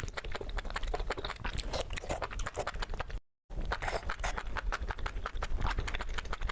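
Close-up eating sounds: crunching and chewing of food with rapid crisp crackles and smacks. The sound drops out briefly a little past halfway, then resumes.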